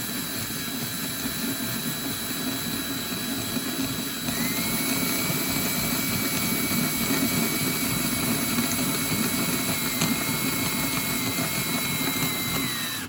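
Electric drill running steadily as it bores out and enlarges a bolt hole in a Stihl 291C chainsaw muffler, its motor speeding up about four seconds in, then dropping just before it stops suddenly at the end.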